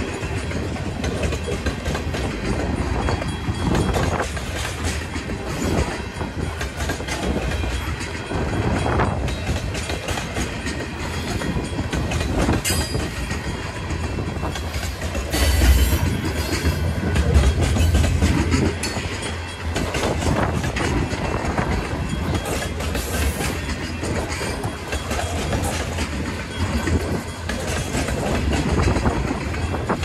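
Freight train's empty grain hopper cars rolling past, wheels clacking over the rail joints with a steady rumble and scattered knocks.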